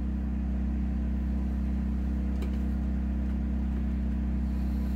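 Steady low electrical hum with evenly spaced overtones, typical of mains hum, and one faint click about two and a half seconds in.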